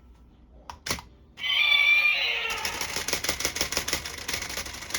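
Remote-control toy lizard: two sharp clicks, then a loud electronic screeching animal cry from its speaker. About a second later a rapid rattle of roughly eight pulses a second sets in and runs on under the cry.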